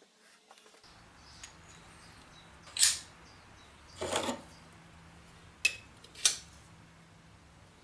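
A few sharp metal clinks and taps as a steel arbor and a toothed steel disc are handled and fitted together, four in all, the second a short rattle lasting a little longer.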